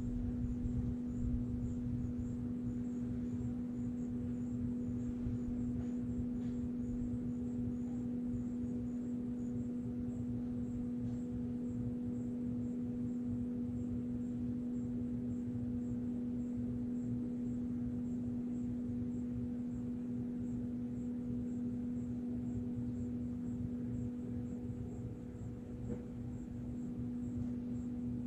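A steady low-pitched hum holding one unchanging tone with a fainter overtone above it, over a low rumble: the unexplained weird noise. A faint, rapid high ticking runs under it.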